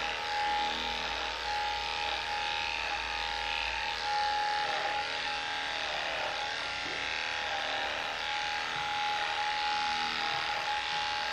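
Cordless electric dog clippers running with a steady buzz as they are worked through a dog's coat.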